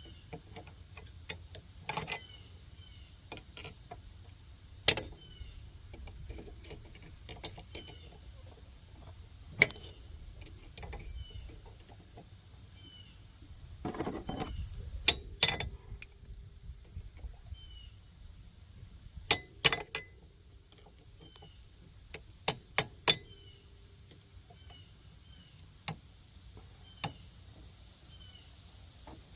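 Scattered sharp metallic clinks and clanks of hand tools and parts during removal of an ATV's CV axle, with a short scraping stretch about halfway through. A small bird chirps faintly and repeatedly in the background.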